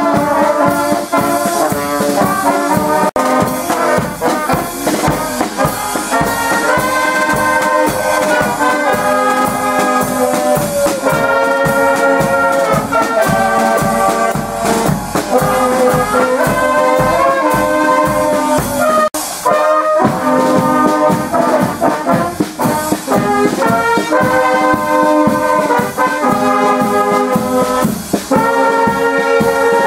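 A brass band playing a tune, with trombones and trumpets over a steady drum beat.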